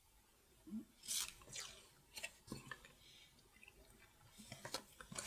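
Faint handling sounds: a few soft rustles and light taps as a paper card is picked up off a table.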